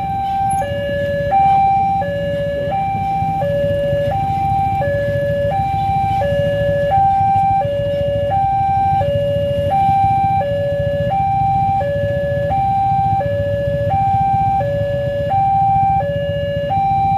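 Railway level-crossing warning alarm sounding while the barrier is down: an electronic two-tone signal alternating steadily between a higher and a lower note, about one high-low cycle every second and a half. A steady low engine rumble from waiting traffic runs underneath.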